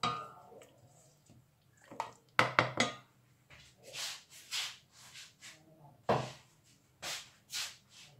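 Wooden spoon stirring and knocking against a stainless steel pot as green curry paste is fried in thick coconut cream: a scatter of short clunks and brief scraping swishes with gaps between them.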